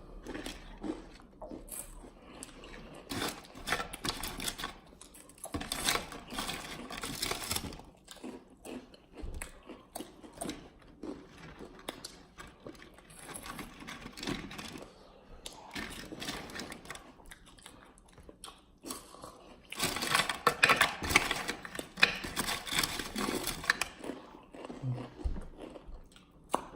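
People crunching and chewing crunchy rolled tortilla chips and hot fries: irregular crisp crackles and bites throughout, loudest and densest in the last third.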